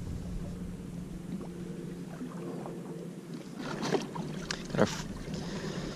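Boat's outboard motor idling with a steady low hum. A couple of short sharp clicks come about four and five seconds in.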